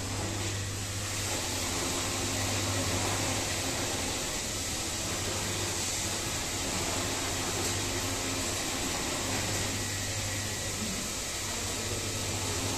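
Steady background noise of a garment workshop floor: an even low hum with hiss and no rhythmic stitching.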